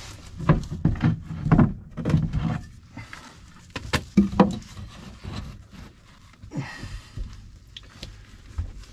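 Irregular knocks and thuds of wooden framing lumber being handled and bumped into place, with a short scraping rustle about seven seconds in.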